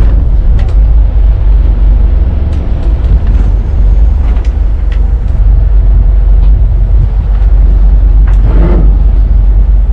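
Low, steady rumble of twin Volvo Penta D4-300 diesel engines running at idle as the boat manoeuvres at slow speed. A faint voice calls out briefly near the end.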